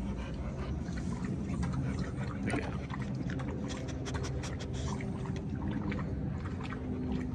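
Dogs panting and lapping water from a steel bowl, with a run of quick, wet clicks in the middle.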